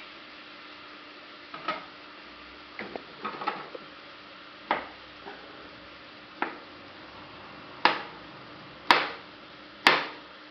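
Kitchen knife slicing a peeled banana on a cutting board, each cut ending in a short tap of the blade on the board. A few soft knocks come first, then single taps about a second apart that grow sharper and louder in the last few seconds.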